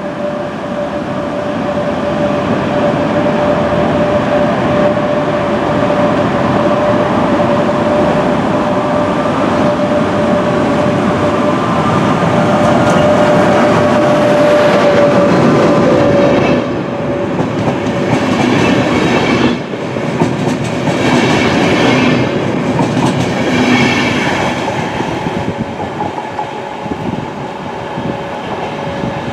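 Electric locomotive hauling double-deck InterCity coaches passing close by, running with a steady whine over the rumble. About halfway through, the whine fades and the wheels' clickety-clack over the rail joints takes over as the coaches roll past, then dies away near the end.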